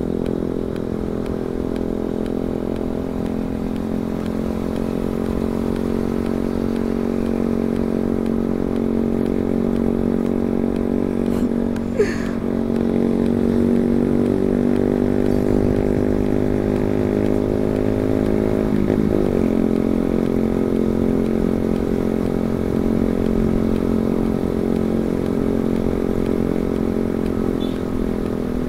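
Yamaha R15 V2's single-cylinder four-stroke engine running steadily at cruising speed, heard from on the bike. A single sharp click comes near the middle, and the engine note shifts quickly about two-thirds of the way through.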